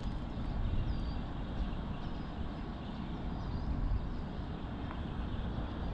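Steady low outdoor rumble of wind on the microphone and distant road traffic, with a few faint high chirps.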